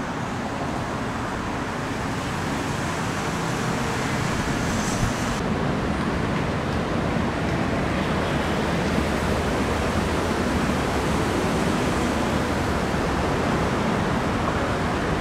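Steady rumbling noise of a diesel locomotive hauling a train toward the listener, mixed with road traffic. It grows slowly louder from about two seconds in.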